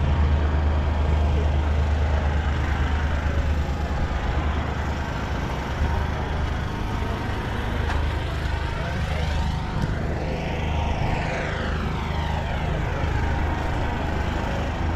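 A propeller aircraft flying over, its sound sweeping up and back down in pitch as it passes about ten to twelve seconds in, over a steady low rumble.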